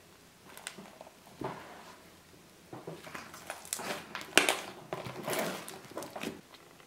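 A large mass of mixed slimes, some with foam beads, kneaded and stretched by hand in a plastic tub: irregular squishing and clicking sounds, sparse at first and more frequent in the second half.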